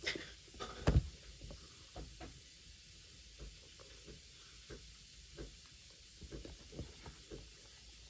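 Paperback books being handled and swapped by hand: soft rustling and light taps of covers, with one sharper knock about a second in.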